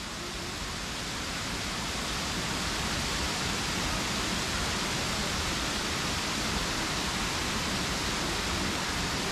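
Waterfall rushing: a steady wash of falling water that grows slightly louder over the first few seconds.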